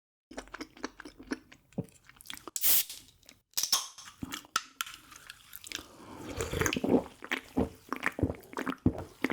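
Close-up mouth sounds of a person eating: chewing with wet clicks and crackles, about two strokes a second in the latter half, and a louder noisy stretch near three seconds in.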